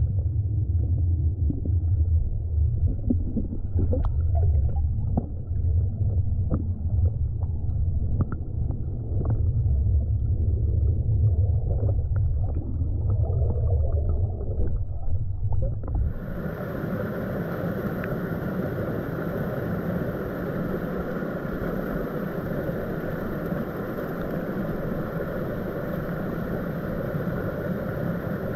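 Rushing stream water heard from underwater: a muffled low rumble with scattered clicks. A little over halfway through it switches suddenly to the full, hissing rush of white water pouring over rocks.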